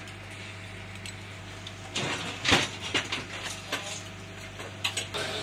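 Steady low hum of a boat's engine, with a few sharp clattering knocks about two to three seconds in and again near the end.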